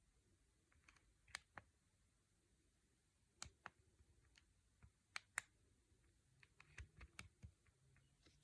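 Faint, irregular clicks of Nokia 6610 keypad buttons being pressed, about a dozen in all, with a quicker run of presses about two-thirds of the way through.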